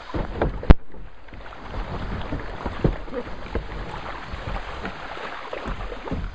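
Kayak running a riffle, river water rushing and splashing past the hull, with wind buffeting the microphone. A single sharp knock comes a little under a second in.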